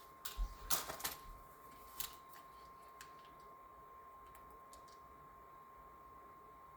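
A quick run of sharp clicks and knocks, then a single click about two seconds in and a few faint ticks, over a faint steady high tone.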